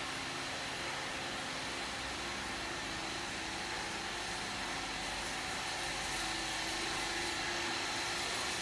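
Steady whirring hum and hiss of a running wiped film distillation unit's vacuum pumps and motor, growing a little louder near the end.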